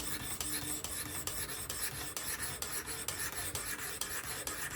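Sharpening stone on a fixed-angle sharpener rasping along the edge of an S30V steel knife blade in quick, even strokes, several a second.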